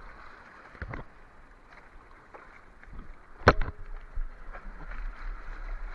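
Sea water sloshing with a steady hiss, broken by two sudden sharp sounds, a small one about a second in and a louder one midway. A low wind rumble on the microphone starts about four seconds in.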